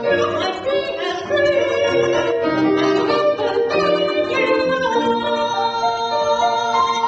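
A woman singing with grand piano accompaniment, ending on a long held note over the last couple of seconds.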